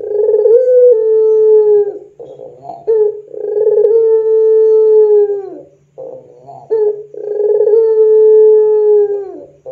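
Puter pelung, a long-cooing variety of ringneck dove, cooing in full voice (gacor). It gives three coos, each a short clipped note followed by a long drawn-out held tone of about two seconds that drops in pitch as it fades away.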